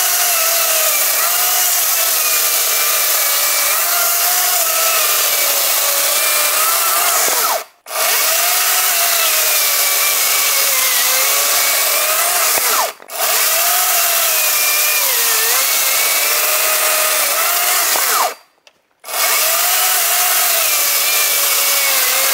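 Makita MUC019G 40V cordless brushless chainsaw running flat out and cutting through a log. Its motor-and-chain whine sags in pitch as the chain bites and recovers as it frees. Three times it cuts off or drops briefly and spins straight back up.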